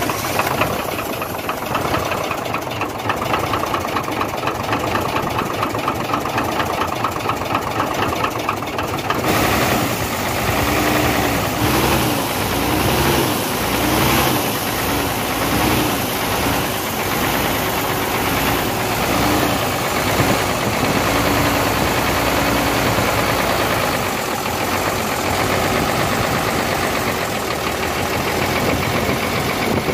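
Hino J08C inline-six diesel engine running at idle with a knock, which the mechanic traces to cylinders one and two after the engine overheated. It gets louder and harsher about nine seconds in.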